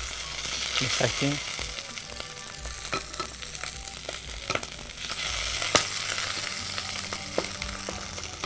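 Chicken pieces sizzling as they brown in hot oil in a pot, with scattered clicks of metal tongs turning them against the pot.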